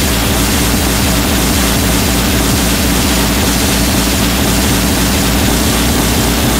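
Hardcore electronic dance music played in a DJ set: a fast, heavily distorted kick drum hammering under a sustained distorted drone and a wash of noise.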